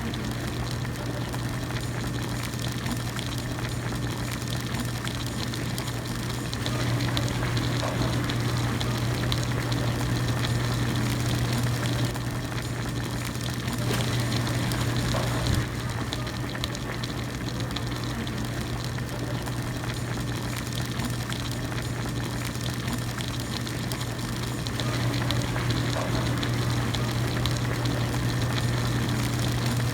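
Hot pot broth bubbling at a steady rolling boil. Under it runs a steady low hum that grows louder for several seconds at a time, about 7 seconds in and again near the end.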